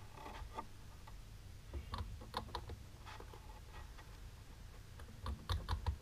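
Long natural fingernails clicking and tapping against a nail polish bottle and brush, in three short clusters of light clicks, the last the loudest.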